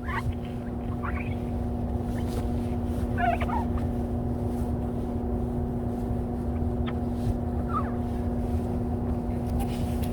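A steady mechanical hum with a low rumble underneath, and a few short high chirps over it.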